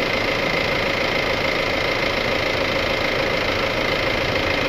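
Mahindra Bolero's engine idling steadily.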